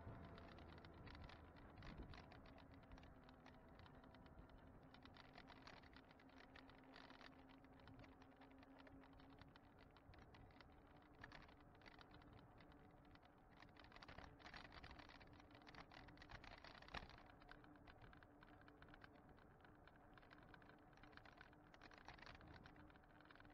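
Faint, rapid rattling and ticking from a bike-mounted action camera shaking over the road surface as an e-bike rides along, with a faint steady hum underneath.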